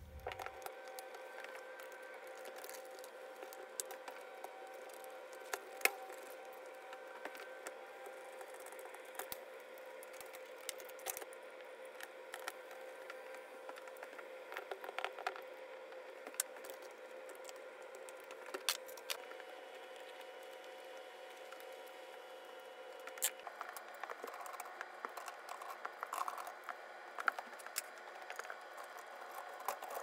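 Faint, scattered clicks and light rattles of plastic parts being handled as a Whirlpool dishwasher's recirculation pump and motor assembly is refitted, over a faint steady hum.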